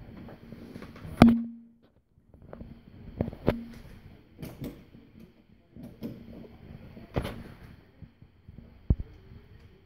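Handling noise from a radio-control transmitter in its hard carrying case: a string of sharp knocks and clicks, the loudest about a second in with a brief low ringing after it.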